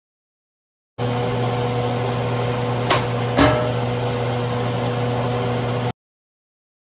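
Steady electrical hum of a running appliance, with two short clicks about three seconds in; it starts and cuts off abruptly.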